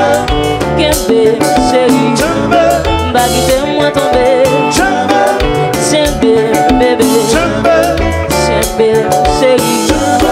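Live band playing a song: vocals over electric guitars and a drum kit with a steady beat.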